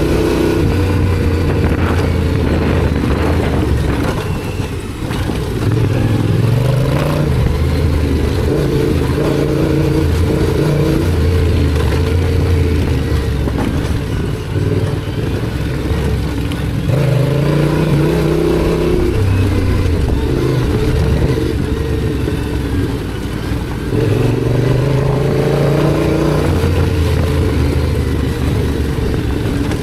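Yamaha Ténéré 700's parallel-twin engine running on the move, its note rising and falling with throttle and gear changes, with a few brief dips as the rider backs off.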